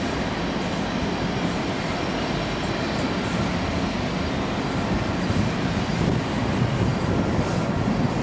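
Empty coal hopper cars of a long freight train rolling past on the rails: a steady noise of wheels on track that swells a little past the middle.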